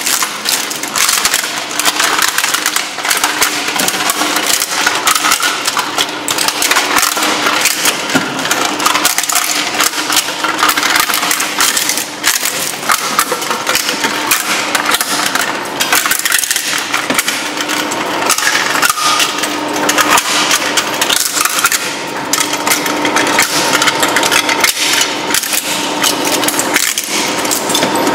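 Twin-shaft shredder crushing an original Sony PlayStation console: dense, continuous cracking and crunching of hard plastic over a steady drone of the machine.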